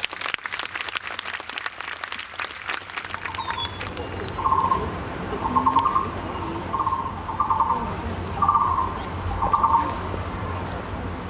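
Audience applause dying away over the first three seconds or so, followed by a short call repeated about once a second.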